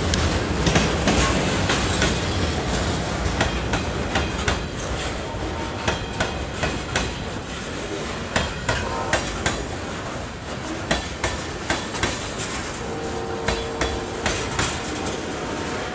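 Covered hopper cars of a freight train rolling past at close range: a steady rumble of steel wheels on rail, broken by many irregular sharp clicks and clacks as the wheels pass over the rail joints.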